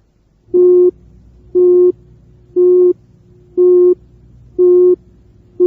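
Pure tone of 360 cycles per second, a musical note of the kind the heart does not usually produce, sounded as short beeps about once a second, six in all.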